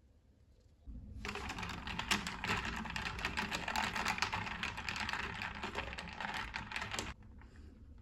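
Fast typing on a computer keyboard, a dense run of key clicks that starts about a second in and stops about a second before the end.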